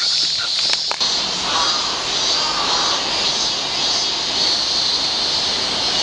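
Cicadas buzzing in a steady, dense chorus, with a sharp click about a second in.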